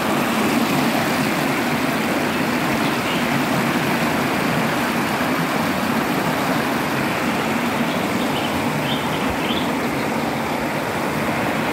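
Spring water flowing steadily over a low weir and down a stone-lined channel, a constant rushing with no break.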